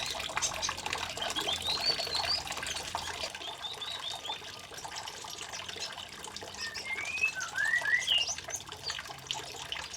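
Small songbirds chirping and giving short whistled notes, some rising and some falling, over a steady trickle of running water.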